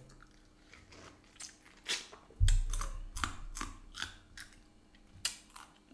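Close-up eating sounds: a man biting into and chewing a lime wedge, with a string of sharp wet mouth clicks. A low thud comes about two and a half seconds in.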